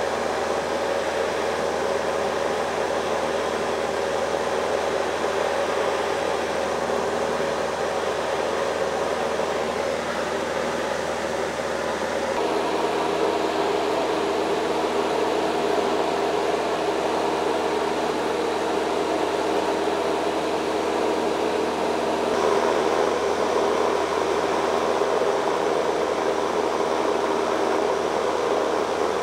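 Steady cabin noise of a single-engine propeller plane in cruise: engine and propeller drone with wind rush, heard inside the cabin. Its tone shifts slightly about twelve and twenty-two seconds in.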